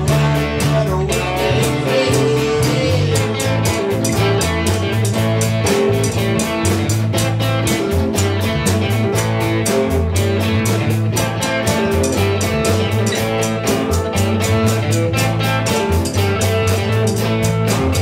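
A rock band playing live: electric bass, electric guitars and a drum kit keeping a steady beat.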